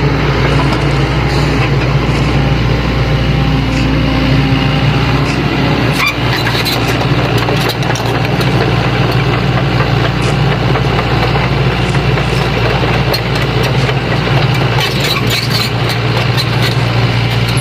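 Sany hydraulic excavator's diesel engine running steadily, with scattered short clicks and knocks over it.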